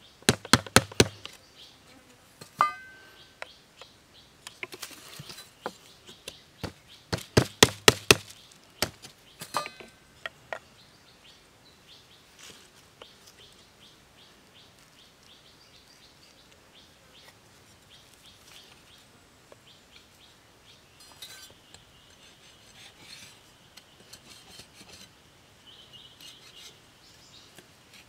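Machete blade chopping and shaving a small wooden stick in quick bursts of sharp chops, the strongest run about seven to eight seconds in. After about ten seconds it turns to quiet handling of the sticks, with faint bird chirps later on.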